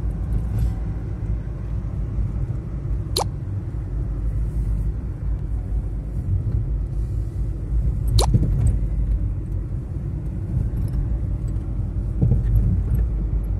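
Car driving, heard from inside the cabin: a steady low rumble of road and engine noise, with two sharp clicks about five seconds apart.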